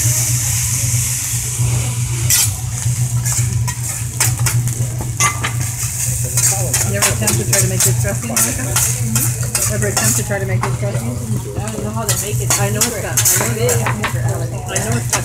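Fried rice sizzling on a steel teppanyaki griddle while a metal spatula scrapes and taps the plate over and over, pushing the rice into shape. The hiss is strongest in the first couple of seconds.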